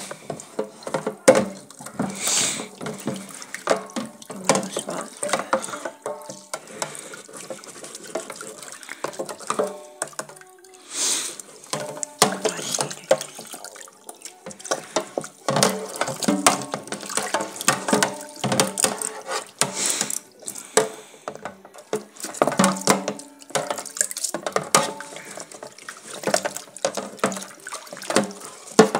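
Tap water running into a stainless steel kitchen sink while hairbrushes are rinsed and scrubbed under it. Irregular knocks and clatter come through as the plastic brushes are handled against the sink.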